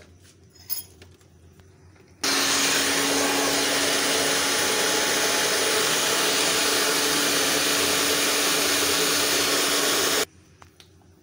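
Electric food processor running steadily for about eight seconds, starting about two seconds in and cutting off suddenly, its blade chopping roasted eggplant pulp with garlic and lemon juice.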